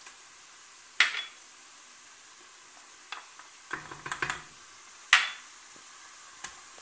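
Wooden spoon stirring onions and ginger-garlic paste frying in oil in a steel pressure cooker over a faint steady sizzle, with several sharp knocks of the spoon and small spice bowls against the pot: one about a second in, a quick cluster around four seconds, a loud one just after five seconds and a lighter one near the end.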